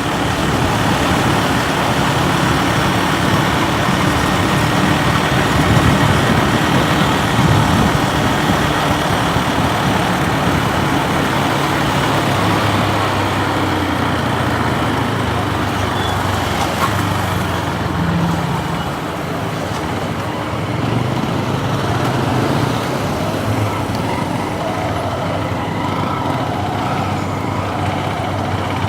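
Motorcycle engine running at low speed in slow, congested road traffic, with the noise of other vehicles around it. The engine hum becomes steadier from about twelve seconds in.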